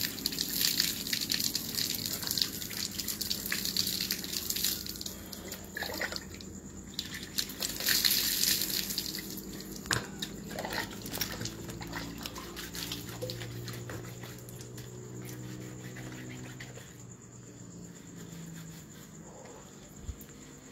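Water poured from a mug over a person's head, splashing onto concrete: two long pours in the first ten seconds, then quieter dripping.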